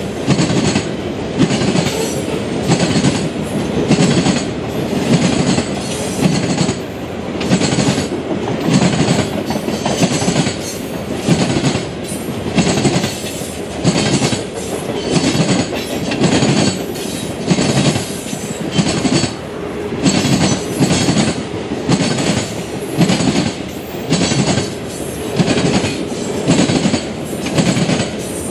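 Freight cars of a CSX train rolling past, their wheels clattering over the rail joints in a steady clickety-clack that repeats about once a second.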